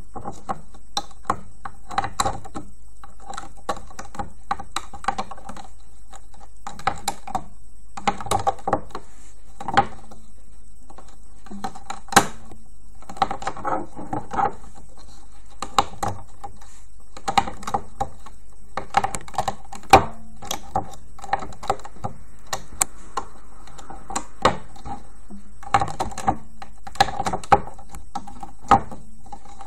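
Rubber loom bands and a plastic band loom being handled up close: irregular clusters of light plastic clicks and taps as the finished band design is worked off the loom's pins by hand.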